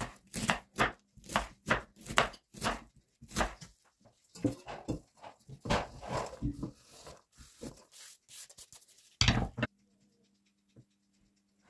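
Chef's knife slicing red cabbage on a wooden cutting board: a quick run of crisp cuts, about two to three a second. Then the shredded cabbage rustles as it is scraped off the board into an enamel pot, with one loud knock about nine seconds in.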